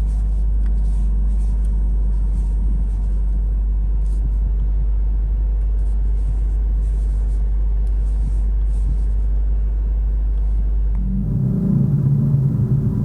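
Mercedes-AMG CLA 45 S running with a steady low rumble and faint light clicks. About eleven seconds in, the sound changes to a louder engine drone with more hiss.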